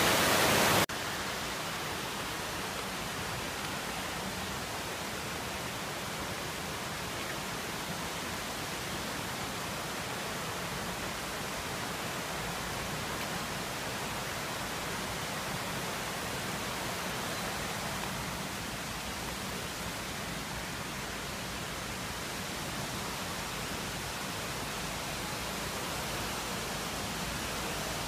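Loud rush of water cascading over the rock terraces of a waterfall, which cuts off abruptly less than a second in. A steady, much quieter even rushing noise follows, with no distinct events.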